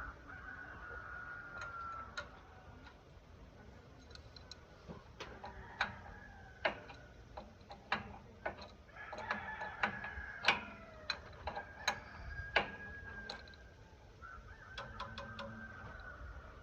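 A rooster crowing several times, long calls that fall slightly in pitch, mixed with scattered sharp clicks and knocks.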